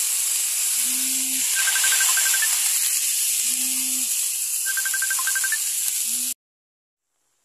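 Thin beef slices sizzling in a hot wok, a loud steady hiss that cuts off suddenly near the end.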